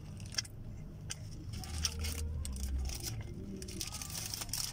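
Person chewing a soft egg-and-cheese sandwich, with small wet mouth clicks. The paper wrapper crinkles near the end, all over a steady low hum.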